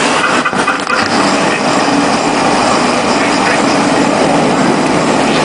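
A blimp's propeller engines make a steady drone overhead, with an even rushing noise and no clear beat.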